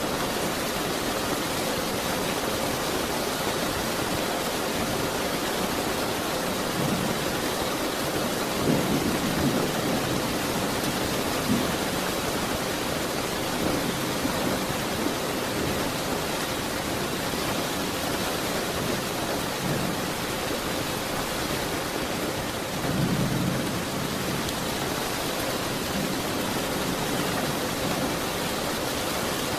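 Steady heavy rain hissing, with low rumbles of distant thunder swelling up around a third of the way in and again near the end.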